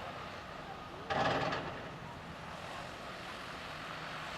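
Heavy construction machinery diesel engines running steadily. About a second in there is a sudden loud clatter lasting about half a second.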